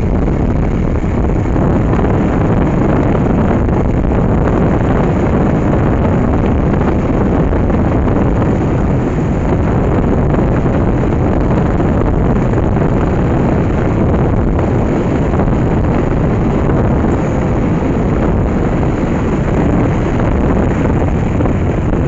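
A Yamaha motorcycle riding steadily along a road: a loud, unbroken rush of wind on the microphone, with the bike's engine and road noise underneath.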